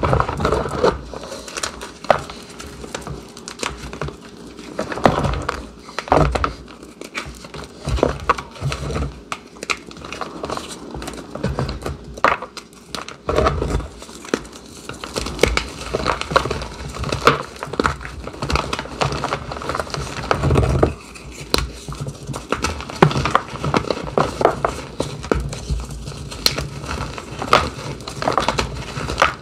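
Reformed gym chalk being crushed and crumbled by hand: a continuous, irregular run of crunching and crackling, with a soft thud now and then.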